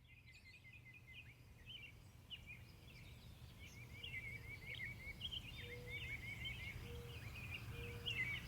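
Faint birdsong: several birds chirping and giving quick trilled phrases over a steady low hum, growing slightly louder through the stretch.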